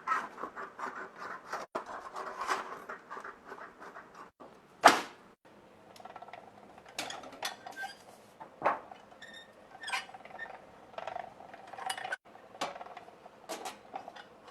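Sheet metal being marked out and handled by hand: a scratching, scraping run of metal on metal, one sharp tap about five seconds in, then scattered light clinks.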